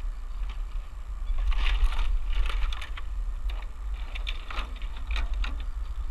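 Steady low wind rumble on the microphone, with irregular scraping and clicking as a rope is pulled in hand over hand and a model airplane brushes and knocks through bare branches.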